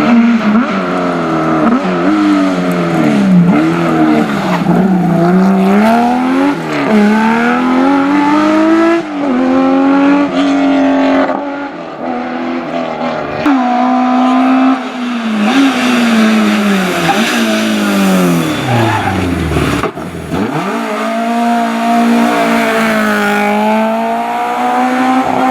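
Historic rally car engine revving hard and lifting off repeatedly, its note climbing and dropping over and over as the car is driven through the gears at full attack. About two thirds of the way in, the note falls away low before picking up again.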